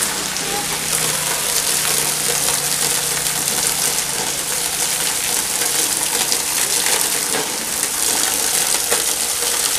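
Heavy rain pouring down onto wet pavement, a steady hiss.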